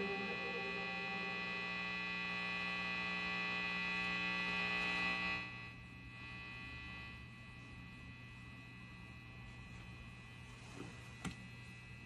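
A steady electrical hum made of many held tones, which drops in level about five and a half seconds in; a single sharp click near the end.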